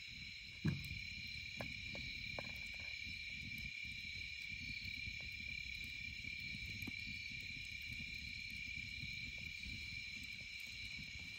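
Fire burning in a Solo Stove Bonfire pit: a low rumble of flames with scattered crackles and pops, the loudest about a second in. A steady high-pitched whine runs underneath throughout.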